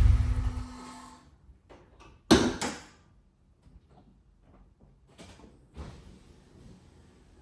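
Acura RSX four-cylinder engine idling, then switched off about a second in; a car door then shuts with a loud slam, followed by a few faint knocks.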